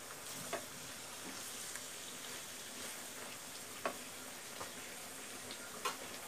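Beef pieces sizzling steadily as they fry in oil with ginger-garlic paste in a nonstick kadai. The meat's cooking water has dried off, so the meat is now frying rather than stewing. A wooden spatula makes a few light knocks against the pan, about half a second, four seconds and six seconds in.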